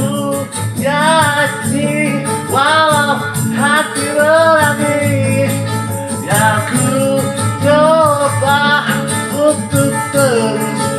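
Music: a sung melody in a hoarse voice over a backing band with a steady light percussion beat.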